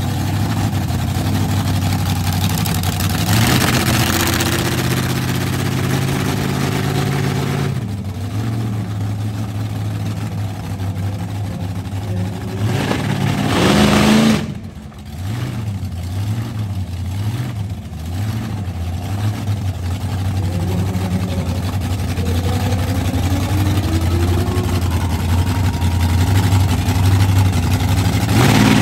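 Monster truck engine idling and revving: a rev about 3 seconds in, a big rising rev at about 13 seconds that cuts back sharply to a lumpy idle, then the revs climb again near the end as the truck pulls away.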